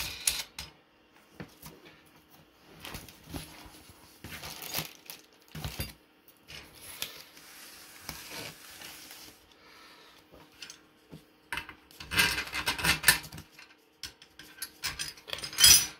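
Metal hardware being handled: steel U-bolt mast clamp brackets clinking, rubbing and scraping against the antenna's wire mesh reflector, as scattered clicks with a louder clatter about three quarters through and a sharp knock at the very end.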